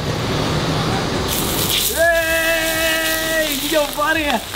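A burning oil-and-water mix is poured from a ladle onto a hot sizzler plate and flares up with a hissing, gushing sizzle. About two seconds in, a man lets out a long held cry, followed by a short exclamation.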